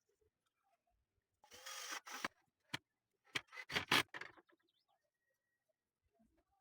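Wood being scraped or rubbed by hand, in two short bursts about a second and a half and three and a half seconds in, with a sharp knock between them.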